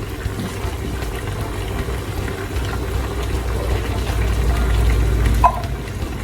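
Large pot of stew simmering on the stove, a steady low rumble with bubbling. A brief clink comes about five and a half seconds in.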